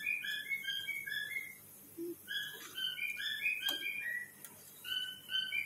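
A bird's short whistled chirps in quick runs at several pitches, over the faint hiss of frying oil, with one sharp click about two-thirds of the way through.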